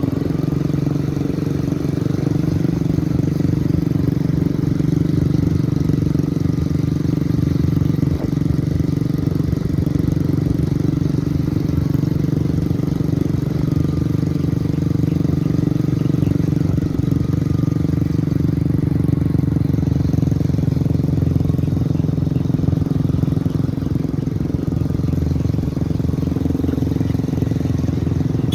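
Small engines running steadily at an even cruising speed, with no revving or gear changes; one of them is a 125 cc offroad go-kart engine.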